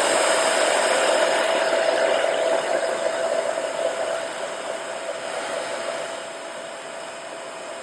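Handheld hair dryer running on its low, warm setting, a steady rush of air with a steady whine, easing somewhat quieter in the second half. It is blowing on an accordion reed block to soften the wax that holds the reed plates.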